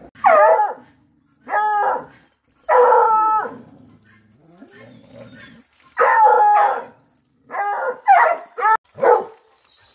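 An American-type hunting hound (cachorro americano) baying: a series of about eight loud, pitched bays, each under a second long, some falling in pitch, with short pauses between them.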